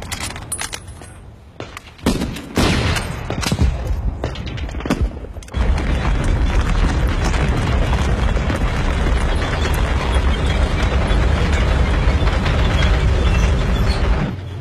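War-film battle sound effects: scattered gunfire and booms, then from about five and a half seconds in a dense, continuous din of gunfire and explosions that cuts off abruptly near the end.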